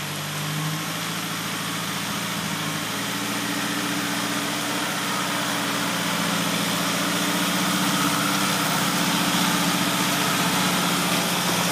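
Four-wheel-drive vehicle's engine running at low revs with a steady hum, stepping up slightly in pitch about a second in and again near three seconds, and growing a little louder.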